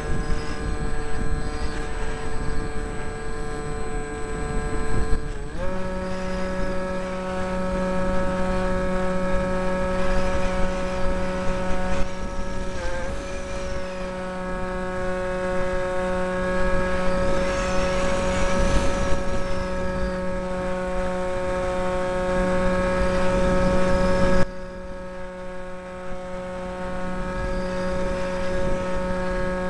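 Electric motor and propeller of an RC mini Cessna, whining steadily as picked up by the camera mounted on the plane. The pitch steps up about five seconds in and dips briefly near the middle. A few seconds before the end the sound suddenly turns quieter, then slowly builds again.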